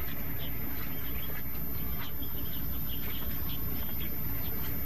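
Insects chirping in short, repeated calls, with a high steady whine and a steady low rumble underneath.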